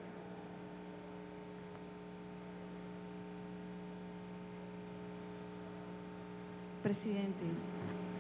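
Steady electrical mains hum from the sound system, a fixed low tone with several fainter higher ones and no change in pitch. A man starts speaking near the end.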